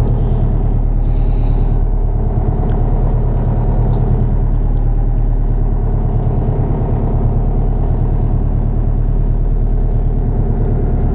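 Boat engine running steadily, a loud, even low drone.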